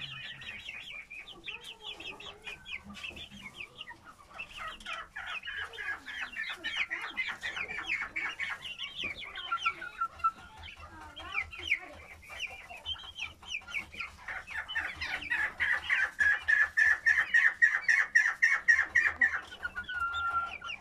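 A flock of young mixed-breed ornamental chickens calling in quick runs of short, high notes, growing louder and more even in the second half.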